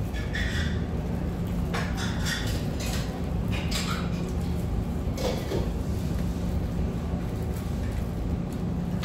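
Crisp fried chicken crunching and rustling as it is bitten and pulled apart with plastic-gloved hands, in a few short scattered bursts over a steady low hum.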